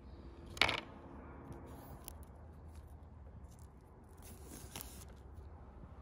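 Plastic sausage casing being slit with a knife and peeled off by hand: one sharp snap about half a second in, a few faint ticks, then a short crinkling rustle near the end.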